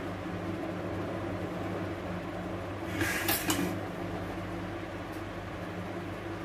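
A metal utensil scraping across a greased steel thali while spreading hot khandvi batter thin: one short scrape with a couple of sharp clicks about three seconds in, over a steady low hum.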